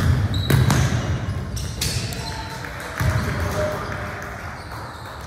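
Basketball bouncing on a gym court during play: a few irregular thuds, with voices in the hall in the background.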